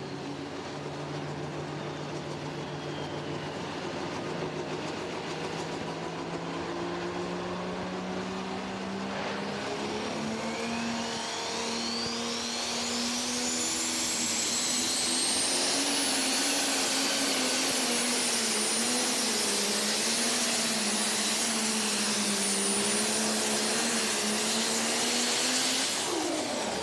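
Turbocharged super stock diesel pulling tractor making a full pull under the sled's load. The engine note climbs as it builds speed, and the turbochargers spool up into a rising high whine that tops out about sixteen seconds in and holds at full power, the engine note wavering as the tractor bounces. The sound drops away right at the end of the pass.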